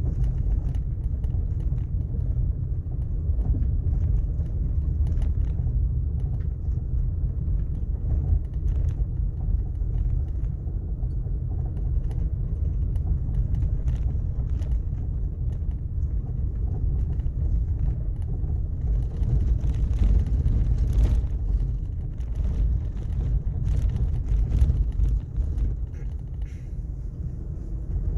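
A car driving on a rough sandy road, heard from inside the cabin: a steady low rumble of tyres and engine, with scattered small ticks and rattles that grow more frequent in the second half.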